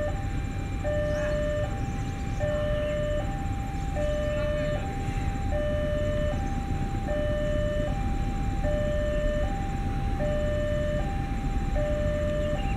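Two-tone electronic warning alarm of a railway level crossing, alternating evenly between a lower and a higher tone, each held just under a second. Underneath runs a low rumble from the approaching diesel locomotive.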